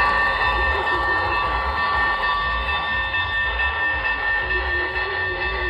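HO scale model train running on the layout: a steady high whine made of several held tones over a low rumble, easing slowly in level.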